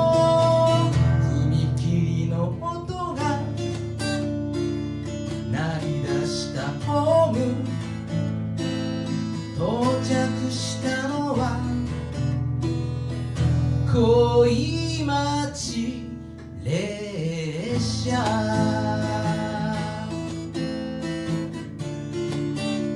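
Steel-string acoustic guitar strummed as a steady chordal accompaniment, with a man's voice singing a wavering melody over much of it.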